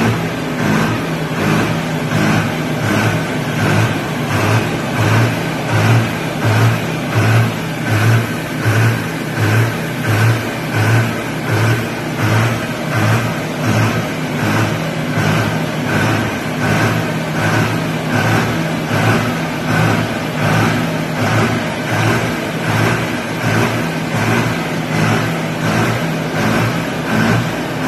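Fendt Farmer 312 LSA tractor's diesel engine running fast at a steady pitch, surging in a regular rhythm about three times every two seconds.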